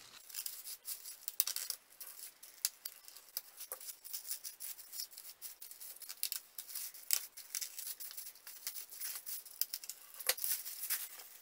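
Scissors snipping through silver foil glued to cardboard, with many quick, irregular snips and light crinkling of the foil.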